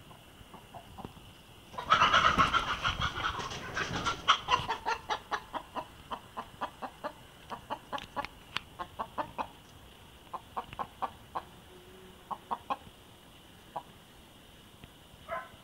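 Young hen squawking loudly about two seconds in, then a long run of rapid clucks that slow down and thin out: the alarm call of a chicken that a cat has been chasing.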